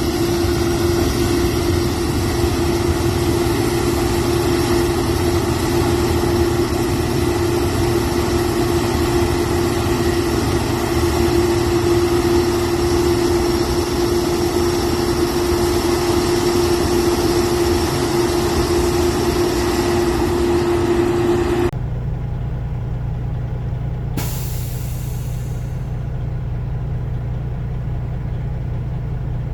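Combine harvester running steadily under load, a loud machine noise with a steady whine over a low engine rumble. About two-thirds of the way through the whine and upper noise cut off abruptly, leaving only the low engine rumble, with a brief hiss a couple of seconds later.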